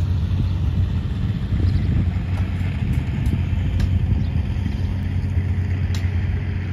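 A steady low rumble with a few light clicks scattered through it.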